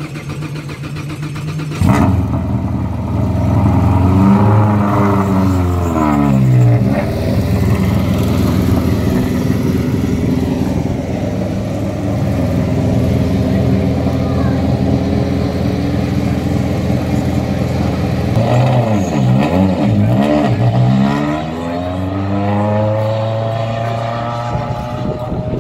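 Formula Ford race car engine catching about two seconds in, then idling and blipped up and down twice with the throttle.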